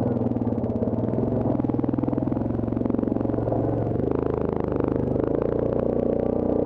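Yamaha Grizzly ATV engine running steadily as the quad climbs a rough dirt trail, with rattling and clatter from the machine over the bumps. The engine note changes about four seconds in.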